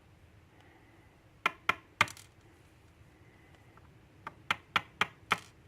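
Small metal lock pins clicking and tapping against a hard surface as they are handled. There are about eight sharp clicks: three close together about a second and a half in, then five near the end.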